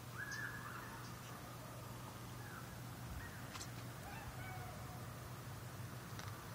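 Faint bird calls, a few short separate cries, over a low steady hum, with a couple of sharp ticks.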